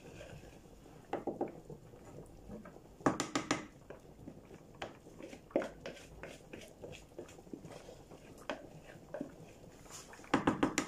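Wooden spoon knocking and scraping against a mixing bowl, working cocoyam paste out into a pot of soup as thickener. Short runs of quick knocks come every few seconds, the loudest about three seconds in and near the end.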